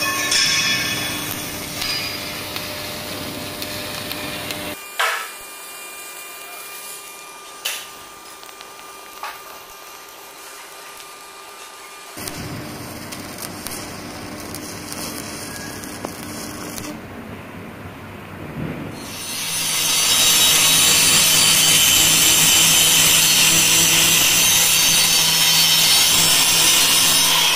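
Stick arc welding with a D100e hardfacing electrode, laying a hard-surfacing bead on steel plate, with a few sharp clicks. About two-thirds of the way through, an angle grinder with a flap disc starts up and grinds steadily and loudly on the hardfaced weld bead.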